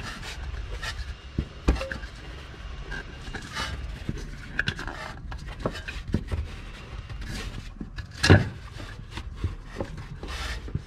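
Scattered clicks, scrapes and knocks of hands twisting and working a fitting on a BMW X5's rear air spring behind the wheel-arch liner, with one louder knock about eight seconds in.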